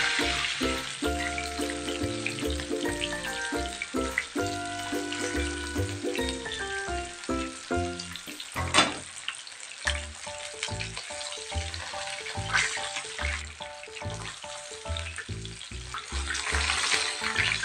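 Pangasius catfish steaks sizzling as they fry in hot oil in a pan, under background music with a steady beat. One sharp click stands out about nine seconds in.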